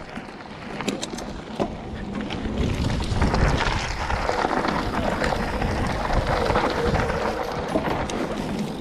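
Mountain bike rolling down a loose gravel and dirt trail: tyres crunching over the stones, with sharp clicks and knocks from the bike and wind on the microphone. The noise grows louder about three seconds in.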